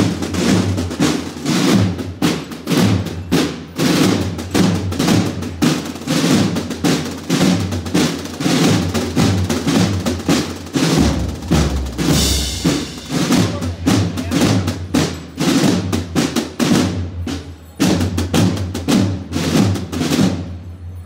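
Marching drums of a cornet-and-drum band: snare drums rolling and bass drums keeping a steady marching beat, with no brass playing.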